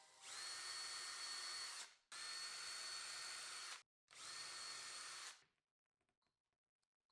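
Cordless drill/driver running in three short bursts with a steady whine, driving small brass screws through a brass plate into a wooden plaque base. Faint small ticks of handling follow near the end.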